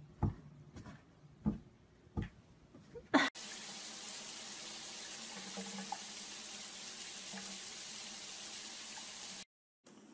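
A few soft knocks as a cat paws at a cardboard box, then a steady hiss of water running from a tap that cuts off suddenly near the end.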